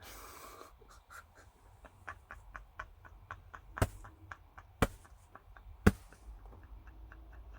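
Silent, wheezing laughter: a breathy exhale, then a long run of quick squeaky gasps at about four a second, with three sharp clicks about a second apart near the middle.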